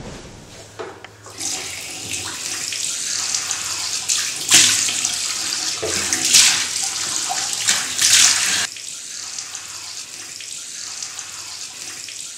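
Water running from a tap into a bathroom sink, with about three loud splashes as water is scooped up and splashed on the face; the running water drops sharply to a quieter trickle about two-thirds of the way through.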